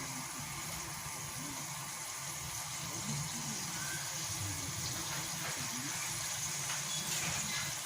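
Steady hiss of a tomato and garlic sauce sizzling and simmering in a pan.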